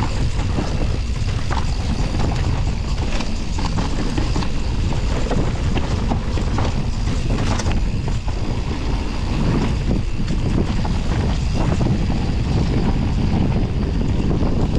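Wind rushing over the microphone and a downhill mountain bike rattling over a rough bike-park trail at speed, with a constant rumble and many small knocks and clatters.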